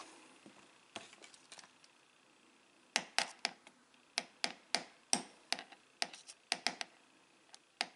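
Small hammer tapping a pin punch to drive a pin out of a metal watch bracelet link: one light tap about a second in, then a run of light, sharp taps at about three a second from about three seconds in.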